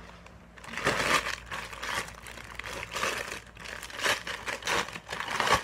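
Parcel packaging crinkling and rustling as it is opened by hand, in irregular bursts that start about a second in.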